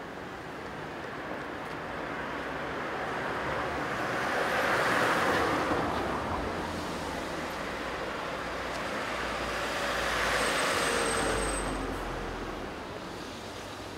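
Street traffic: two cars pass one after the other, the first swelling and fading about five seconds in, the second about ten seconds in.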